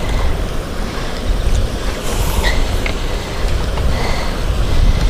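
Wind buffeting the microphone, a low rumble that swells and dips, with a few faint ticks.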